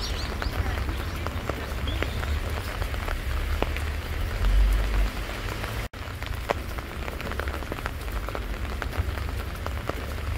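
Rain falling on wet pavement and puddles, a steady patter made of many small drop ticks. A low rumble swells briefly about halfway through.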